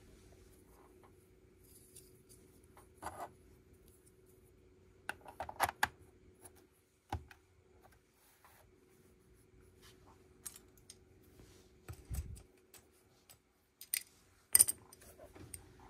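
Plastic Lego bricks being handled and pressed together: scattered small clicks and taps, a dull thump about 12 seconds in, and a sharper, louder click near the end, over a faint steady hum.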